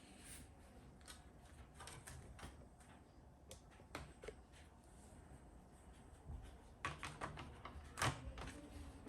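Faint, scattered clicks and taps of small laptop parts being handled during an SSD swap. A cluster of clicks comes about seven seconds in, and the loudest click about eight seconds in.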